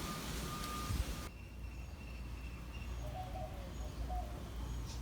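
Vehicle reversing alarm beeping at an even pace over a steady hiss, cut off abruptly about a second in. A quieter outdoor background with a low rumble and a few short bird chirps follows.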